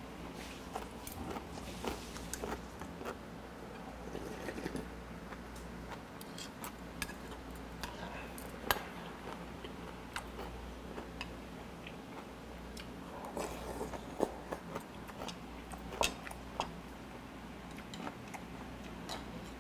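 Someone eating a meal: chewing, with metal chopsticks and a spoon clicking against bowls and side-dish plates in scattered sharp taps, over a low steady hum.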